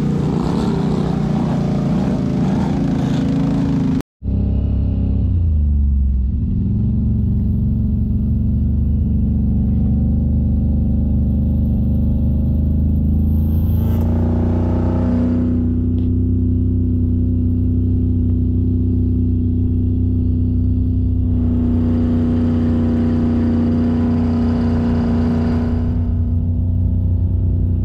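Off-road engines: a side-by-side UTV is driving through a muddy water hole for the first few seconds. After a sudden cut, an ATV engine settles from a rev down to a steady idle close by. Other quads rev past around the middle and again near the end.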